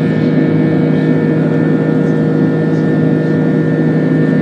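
Steady engine noise inside the cabin of an Airbus A330-300 climbing after takeoff: the Rolls-Royce Trent 700 turbofans' buzzsaw, a rough hum with several steady tones held throughout.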